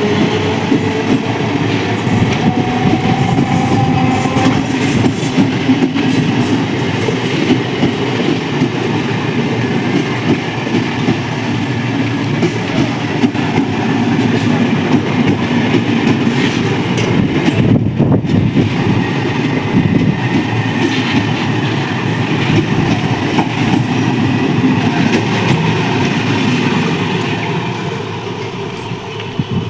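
Train running past on the rails, its wheels clattering steadily over the rail joints; the sound fades away near the end.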